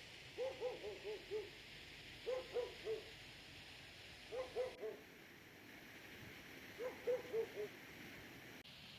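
A distant dog barking in four short runs of four or five quick barks, over a steady hiss.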